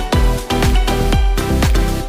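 Background electronic dance music with a steady kick-drum beat.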